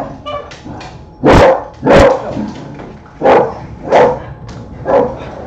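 Pet dog barking: five loud barks in about four seconds, mostly in pairs, the last one weaker.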